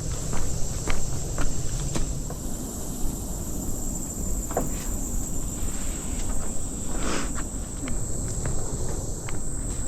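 Steady high-pitched drone of insects, with irregular footsteps on the trail and a low rumble underneath.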